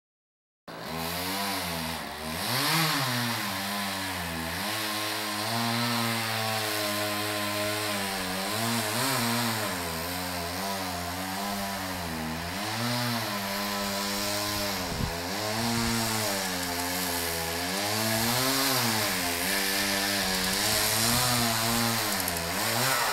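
Chainsaw running under load, cutting into a tree trunk, its engine note dipping and rising again and again as the chain bogs in the cut and picks back up. It cuts in suddenly about a second in.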